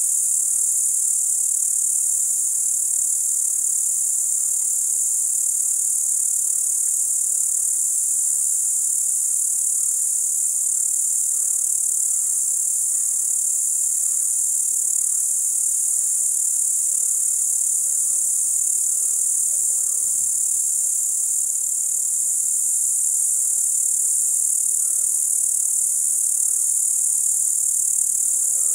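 Crickets trilling in a steady, unbroken, high-pitched night chorus.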